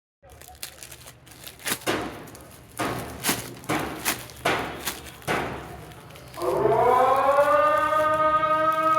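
Packaging being handled and torn open, in a series of uneven rustles and rips. About six and a half seconds in, a loud sustained tone starts, slides up in pitch and then holds steady.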